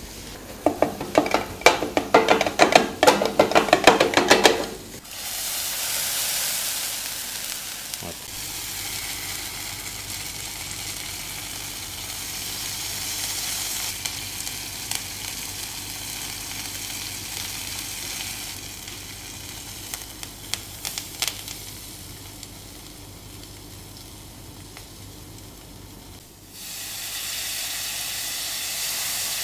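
Metal spatula rapidly chopping and scraping a chicken podimas mix on a hot flat griddle, a fast clatter of strikes that stops about five seconds in. Then a masala-coated chicken leg sizzles steadily on the griddle, the sizzle jumping louder near the end as a cloud of steam rises.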